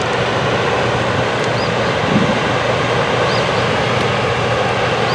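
Steady rushing roar of water pouring through the open spillway gates of a small river dam in heavy spring runoff.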